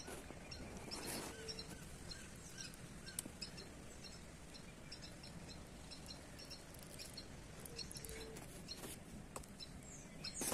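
Small birds chirping, many short high calls repeated throughout, faint against a low outdoor background, with a few brief rustles.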